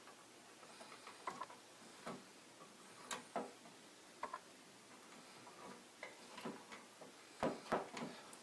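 Faint, irregular clicks and taps of bare copper ground wires being handled and bent together in an electrical wall box.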